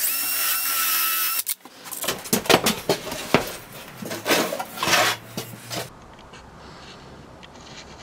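Cordless drill with a countersink bit whining steadily as it bores countersinks into a wooden board for screw plugs, stopping about a second and a half in. Then irregular clicks, knocks and scraping of the board and tools being handled, fading to quieter shop sound near the end.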